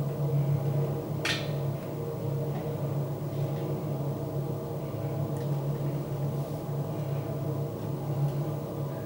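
Steady low mechanical hum with a single sharp click about a second in.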